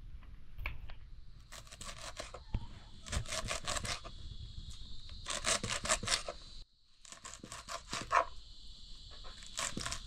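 Mustard greens (rayo saag) being prepared for cooking: several short bursts of crisp tearing and crackling.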